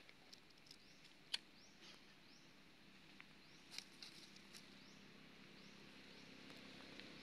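Near silence outdoors: faint high chirps repeating throughout, with a few sharp crackles of dry leaf litter, the loudest about a second and a half in. A low hum grows louder near the end.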